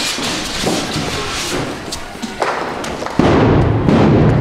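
Scuffle between riot police and protesters: a jumble of thumps and knocks, then a sudden loud, low rushing noise lasting about a second near the end.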